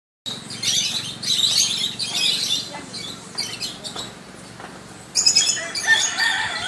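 Birds chirping and calling in quick high bursts, which grow louder and busier about five seconds in, with some held whistled notes.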